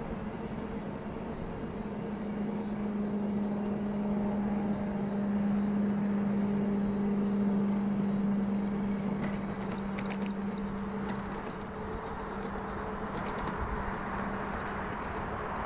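E-bike riding along a paved trail: a steady low hum, strongest in the middle, over continuous wind and tyre noise. A few light clicks come in the second half.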